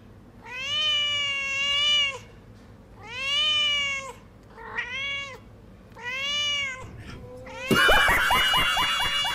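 Recorded cat meows played back: four long, drawn-out meows with short gaps between them, the third one shorter. About a second and a half before the end, a loud burst of a man laughing cuts in over them.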